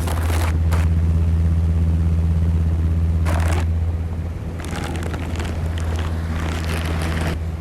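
Film-burn overlay sound effect: a steady low hum with crackles and pops over it, and a longer patch of crackling hiss over the last few seconds.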